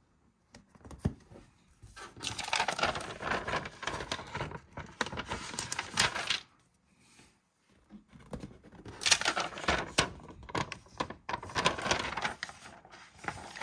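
Clear plastic sticker sheet crinkling as it is handled, in two long stretches of crackling with a short pause between.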